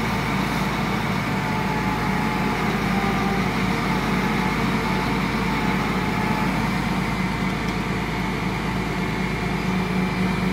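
Diesel engines of truck-mounted knuckle-boom log loaders running steadily as their cranes hold and shift a large log, a constant low hum with no change in speed.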